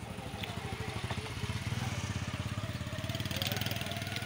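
A small engine running close by with a steady, rapid pulsing hum that grows louder about a second and a half in.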